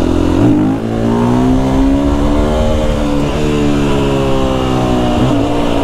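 Husqvarna FE 350 single-cylinder four-stroke enduro engine under way, with the revs climbing for about two seconds and then gradually easing off.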